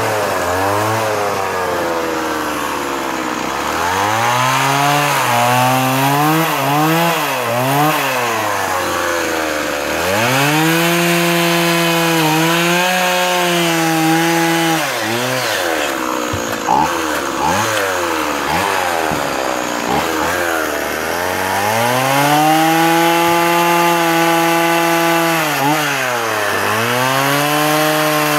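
Stihl MS 170 two-stroke chainsaw carving into a wooden post, revved up and down over and over, held at high revs for a few seconds at a time while cutting. Around the middle it drops back to idle for a few seconds before revving up again.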